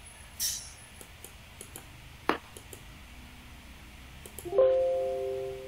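A Windows system chime, the ding played when the volume slider is adjusted: one bright chord of several tones about four and a half seconds in, fading over about a second. A couple of short clicks come before it.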